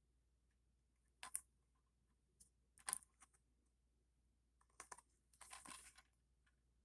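Faint handling noise from a plastic DVD box set: three soft clicks about a second and a half apart, then a short rustle near the end.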